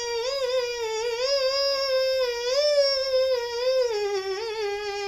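A boy singing a naat unaccompanied, drawing out one long note with small wavering turns that steps a little lower about four seconds in.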